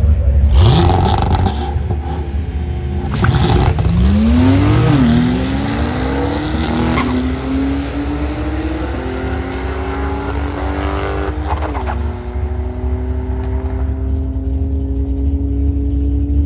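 Two cars launching off a drag strip start line and accelerating hard. The engine pitch climbs and drops back at each upshift, about three times, and the sound eases as the cars pull away.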